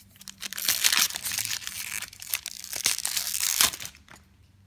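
Foil-lined Magic: The Gathering booster pack wrapper being crinkled and torn open by hand: a run of sharp crackling and tearing bursts that dies down near the end.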